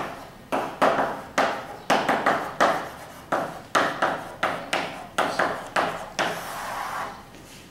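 Chalk writing on a blackboard: a string of sharp taps and short scratches, two or three a second, then a longer scrape about six seconds in.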